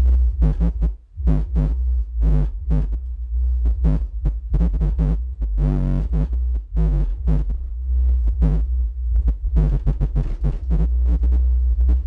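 Dubstep played loud through a home audio system with two 10-inch MTX Jackhammer subwoofers: a constant deep bass under rapid, chopped synth stabs, with a brief drop-out about a second in.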